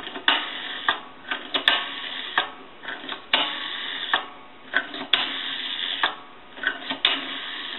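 Rotary dial of an old Navy ship telephone being turned and let go for one digit after another. Each release is a short whirring run of clicks as the dial spins back.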